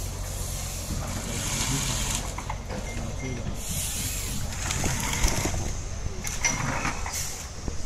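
Heavy forestry machines' diesel engines running steadily, with repeated hissing bursts about a second long and a sharp knock about five seconds in.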